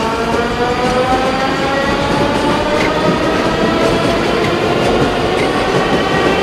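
Metro train pulling away, its traction motor whine rising steadily in pitch over the noise of wheels on rails, with faint clicks of the rail joints.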